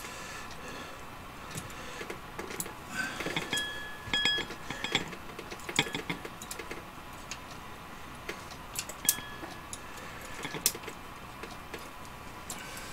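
Irregular light metallic clicks and taps as the parts of an 1889 Bodeo revolver are handled and the cylinder is fitted into the frame, with a few sharper clicks and brief metallic rings.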